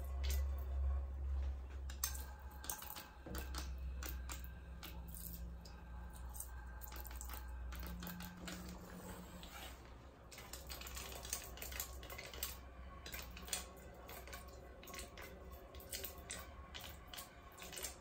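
Water squirted from a squeeze bottle onto a hot non-stick frying pan, crackling with many irregular sharp ticks as it boils off around the cooked sugar. A low hum sits underneath, fading about halfway through.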